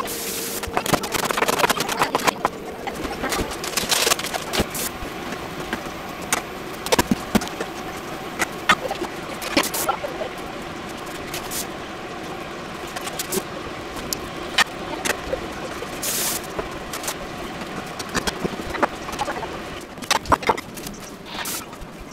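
Kitchen clatter: scattered knocks and clicks of a knife, board, dishes and utensils being handled, over a steady low hum.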